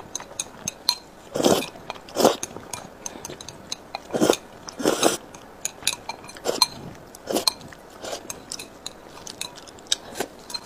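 Close-up eating sounds: a person slurping saucy noodles several times, with wet chewing and chopsticks clicking against a ceramic bowl. The slurps are loudest in the first half.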